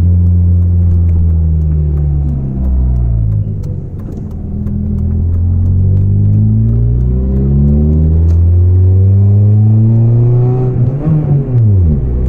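Volvo 440's engine running through a broken, leaking exhaust, loud and deep under acceleration. The revs dip about two and a half seconds in, climb steadily for several seconds, then fall away sharply near the end as the throttle is released.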